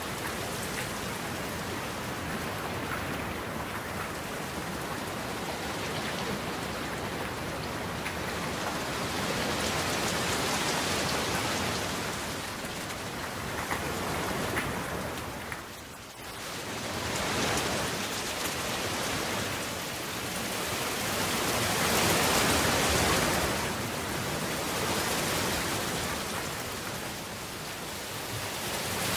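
Steady rain, swelling and easing every few seconds, with a brief lull about halfway through.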